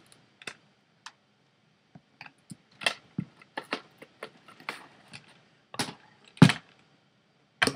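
Irregular clicks, taps and knocks of the Hoover Handivac's swing-down metal latches and plastic housing being worked open by hand to get at the bag, with two louder knocks about six seconds in. The vacuum's motor is not running.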